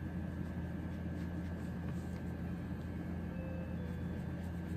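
A steady low hum with a faint steady high tone above it, unchanging throughout.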